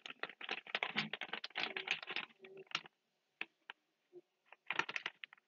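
A rolled-up paper slip being unrolled and handled close to a phone microphone: a quick run of crinkles and rustles for about two seconds, a few scattered ticks, then another short crinkle near the end.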